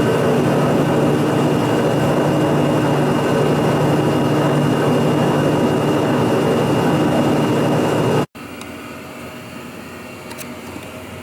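A shop machine running steadily with a constant hum and a thin high whine. A little over eight seconds in it cuts off abruptly, leaving a much quieter steady hum.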